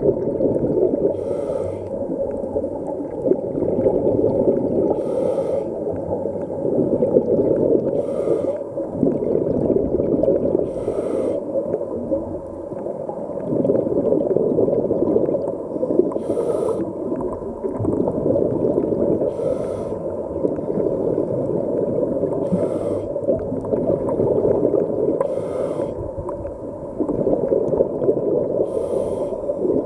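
Muffled underwater rushing and gurgling picked up by a camera held below the surface, with a brief faint hiss about every three seconds.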